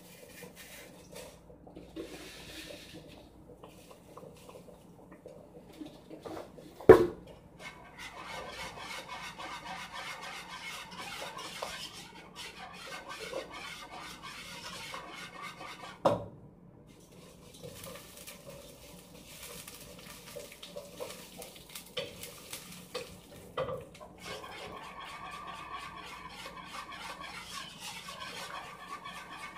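Cookware being handled while preparing a pot of rice: clinking and scraping of pots and utensils, broken by two sharp clanks, the louder about seven seconds in and another about sixteen seconds in.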